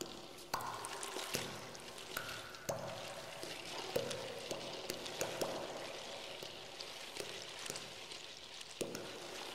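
Background music of traditional Māori instruments (taonga puoro): a trickling, splashing water texture with short ringing tones that sound every second or so and fade out.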